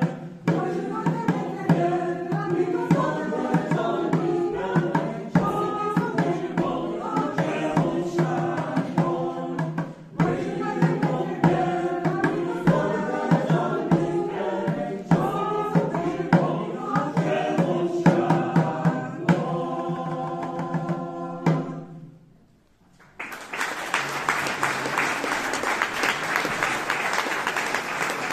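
Mixed choir singing a Renaissance dance song in parts over a steady hand-drum beat. The song ends about 21 seconds in, and after a brief silence the audience applauds.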